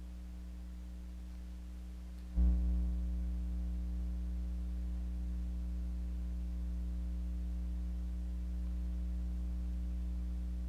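A steady low hum with fainter higher tones above it. About two seconds in it jumps louder with a click, then holds steady.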